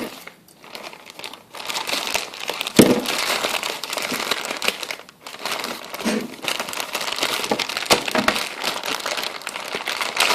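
Packing wrap being crinkled and pulled off by hand while unwrapping a parcel: continuous crackling and rustling that starts after a quieter first second or so, with a knock about three seconds in.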